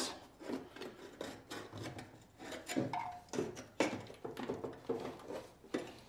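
Aluminum angle bracket, carrying a DC converter and relay, being worked into a golf cart's battery compartment: irregular rubbing and scraping with a few light knocks of metal against the cart body and batteries.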